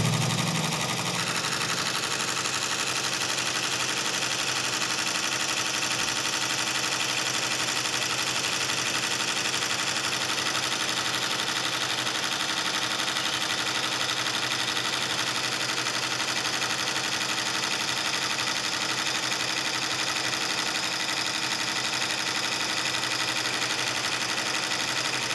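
Embroidery machine stitching at a steady pace: a continuous, even mechanical running sound from the needle drive.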